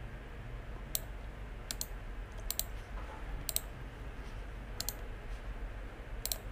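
Computer mouse clicking while selecting and copying text: about six sharp clicks at irregular intervals, several in quick pairs, over a faint steady low hum.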